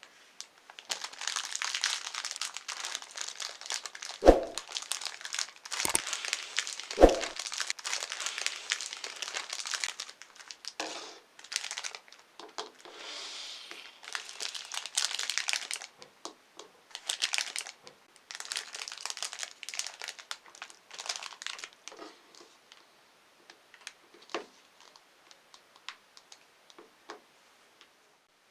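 Plastic candy packaging crinkling as it is handled and torn open. The crinkling is dense at first and later comes in shorter spells, with dull thumps about four and seven seconds in.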